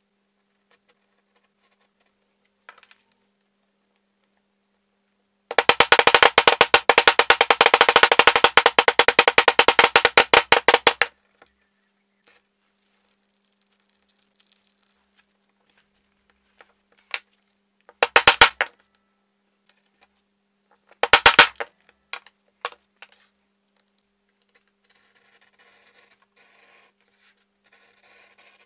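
Metal leather-stamping tool struck rapidly on vegetable-tanned leather to punch a dotted texture, giving a fast run of sharp taps at about eight a second. It lasts some five seconds, then comes back twice in short bursts later on.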